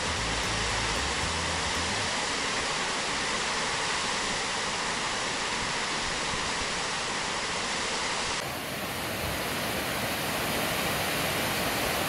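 Waterfall's steady rush of falling water, running at full winter flow and unfrozen. The tone shifts abruptly about eight seconds in.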